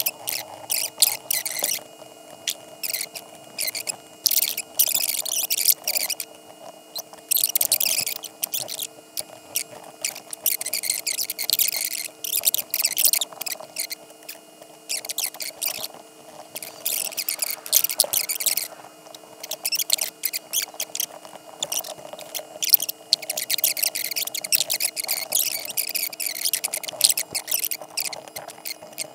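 Stylus scratching across a graphics tablet in irregular strokes, some short and some a second or two long, over a steady faint hum.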